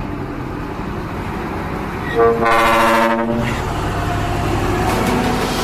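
Diesel dump truck's trumpet-style air horn blown once, about a second long, over the steady rumble of the truck's running engine.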